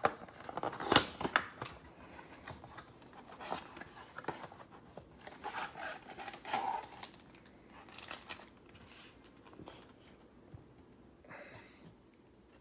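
Cardboard trading-card box being torn open and its cellophane-wrapped packs pulled out: tearing, crinkling and scraping, with the sharpest snaps about a second in and quieter rustling later on.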